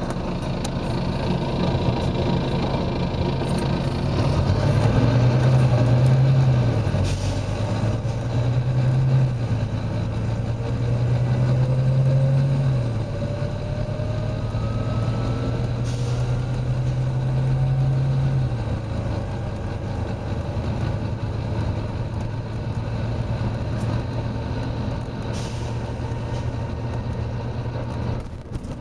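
Volvo B9TL bus's six-cylinder diesel engine heard from on board, pulling hard, its note climbing and dropping back about four times in the first twenty seconds as the gearbox changes up. A few short hisses of air sound along the way.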